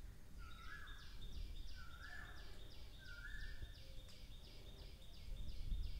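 Birds calling: a rising two-note call repeated four times, about a second and a half apart, over a quick high series of chirps at about three a second.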